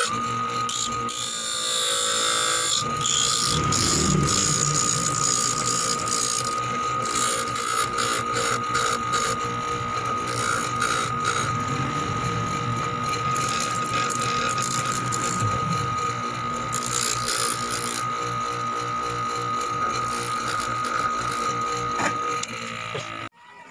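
Bench grinder running with a steady whine while a small high-speed-steel rod, held in pliers, is ground against the wheel, the metal rasping on the stone off and on. The sound cuts off suddenly near the end.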